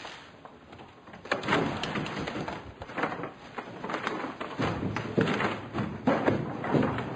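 A door shutting, then paper shopping bags rustling as they are carried and set down.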